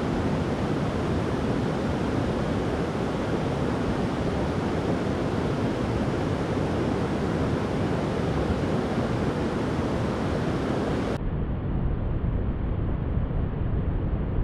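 Steady rushing of a creek and waterfall. About eleven seconds in, the higher hiss drops out abruptly for about three seconds, leaving a duller rush, then comes back.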